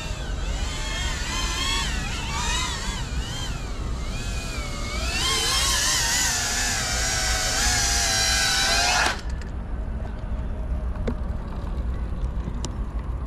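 FPV quadcopter motors whining, the pitch rising and falling as the throttle is worked and getting louder about halfway through, then stopping abruptly about nine seconds in as the motors shut off.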